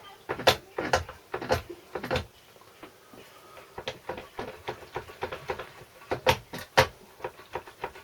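Sharp knocks and a clatter of metal parts on a small engine being worked by hand, as a stuck carburettor is tugged and wiggled. There are loud knocks in the first two seconds and two more about six to seven seconds in, with lighter rapid ticking between.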